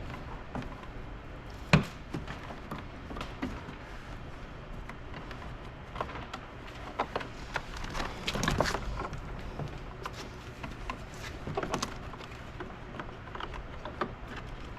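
Scattered knocks, clicks and rustling of hands fumbling with parts inside a car door while hooking a piece back into place, with one sharp knock about two seconds in and a cluster of clatter around the middle.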